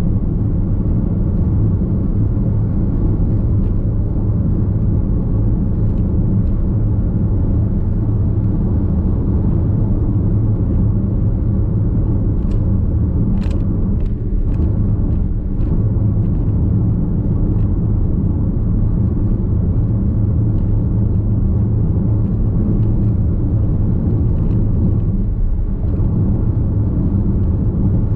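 Steady low road and tyre rumble inside the cabin of a Nissan X-Trail Hybrid cruising on an expressway, with a few faint ticks about halfway through.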